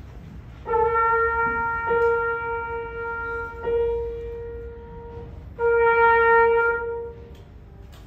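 B-flat trumpet playing long held notes all on one pitch: a note that is re-tongued twice over about four and a half seconds, then a short break and one more long note.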